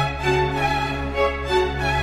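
Background music: strings, with violin notes held over a steady low bass.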